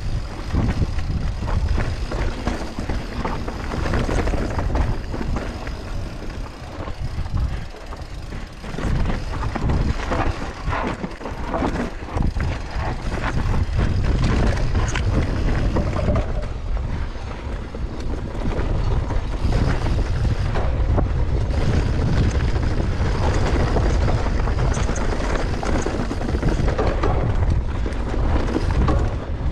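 Mountain bike descending a dirt trail at speed: wind buffeting the microphone, with tyre noise and the bike rattling over rough ground in quick clicks and knocks.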